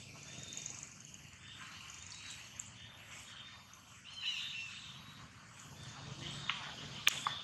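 Faint outdoor ambience with a few short, high chirps about four seconds in and a couple of sharp clicks near the end.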